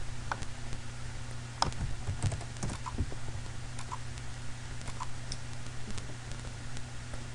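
Computer keyboard and mouse clicks: a dozen or so sharp, irregular clicks, some in quick pairs, over a steady low electrical hum.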